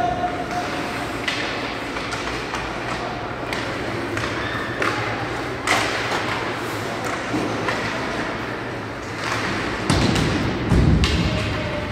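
Ice hockey play in an echoing rink: a scatter of sharp knocks and heavier thuds from sticks, puck and players hitting the boards, the loudest thuds about ten to eleven seconds in.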